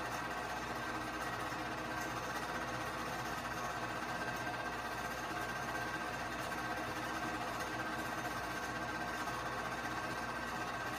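Keystone K-502 8mm movie projector running, a steady mechanical whirr with an even hum from its motor and film transport.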